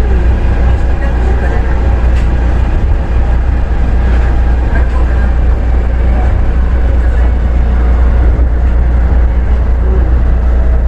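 Osaka Monorail train running, heard from inside at the front of the car: a steady, loud low rumble with a faint running hum over it.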